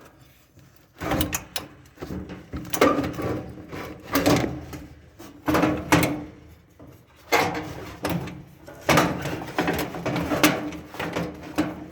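Parts of a GE dryer being slid and worked loose by hand during disassembly: repeated rough scraping and knocks, about seven bursts, roughly one every second and a half.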